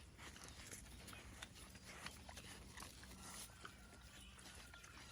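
Very faint animal movement on a farm: scattered light clicks and rustles, with a faint thin steady tone in the second half.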